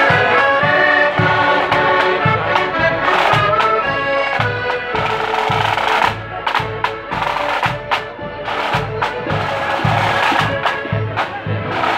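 Marching accordion band playing a tune in held chords over bass drum and side drums beating about two a second. About halfway through the accordions fade and the drumming carries on.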